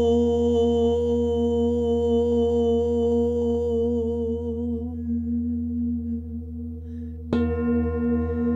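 An old hammered Tibetan singing bowl rings with steady, sustained tones while a woman's voice tones a long "Om" along with it; the voice ends about five seconds in. Near the end the bowl is struck again with a padded mallet and rings out anew.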